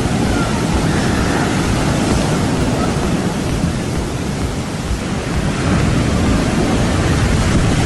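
Heavy ocean surf breaking, a loud steady wash that dips slightly midway and swells again near the end, with wind rumbling on the microphone.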